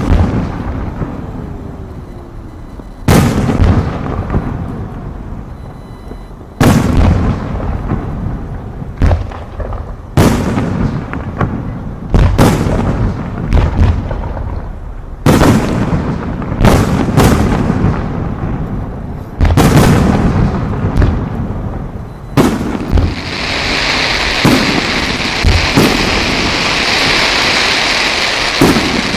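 Aerial fireworks shells bursting, with loud booms every two to four seconds, each followed by a trailing crackle and rumble. In the last several seconds a steady dense hiss takes over between the bangs.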